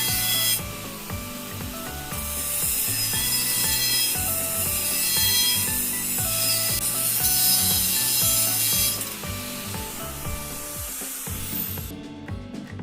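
Steel offcut being worked by hand into a replacement Woodruff key for the engine blower's flywheel, making a rasping sound that stops about nine seconds in. Background music plays underneath.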